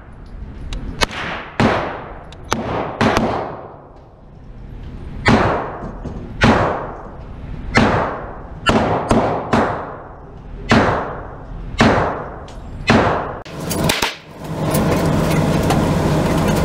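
Gunshots going off in an indoor shooting range, single shots at irregular intervals of about half a second to two seconds, each with a long reverberant tail. About two seconds before the end a steady loud noise sets in.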